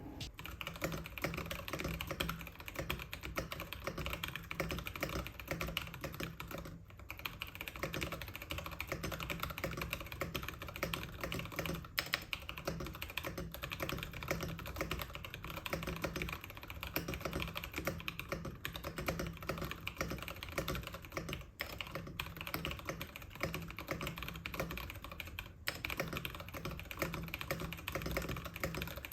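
Fast, continuous typing on a mechanical keyboard with PBT keycaps and 63.5 g tactile switches (nylon housings, POM stems) on an FR4 plate, a steady stream of keystroke clicks broken by a few short pauses. Picked up by a phone's built-in microphone.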